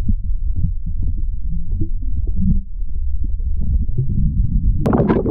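Muffled underwater rumble of water moving over a submerged camera, with soft knocks. Near the end it turns suddenly into louder splashing and bubbling as the camera is pulled up through the water.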